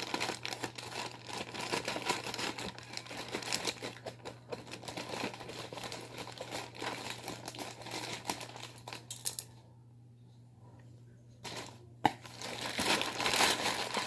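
Parcel packaging crinkling and tearing as it is opened by hand. Near the end it stops for about two seconds, a sharp click sounds, and the crinkling starts again, louder.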